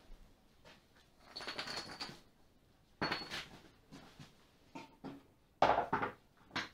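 Workshop handling noises: scattered clicks and footsteps, two short scraping rustles, and a cluster of loud clanks about five and a half seconds in, as the metal oil drip tray under the engine is picked up off the concrete floor.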